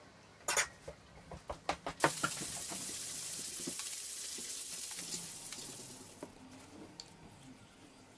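A few light knocks, then about four seconds of steady hiss from a sanding block rubbing over the tree-root slab, fading out near the end.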